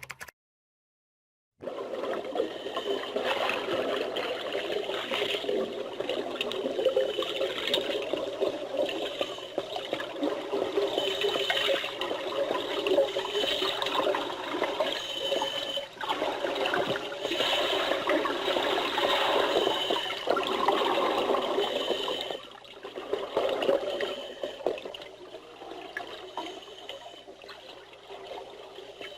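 Scuba diving sound effect: bubbling, churning underwater noise. It starts after about a second and a half of silence, runs loud for about twenty seconds, then turns quieter near the end.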